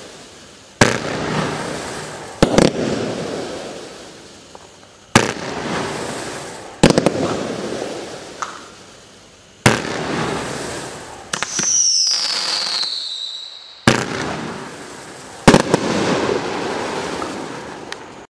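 T-Sky Rain Maker 500-gram, 25-shot fireworks cake firing: about seven sharp bangs a second or two apart, each followed by a hiss that fades away. Near the middle a whistle glides down in pitch for about two seconds.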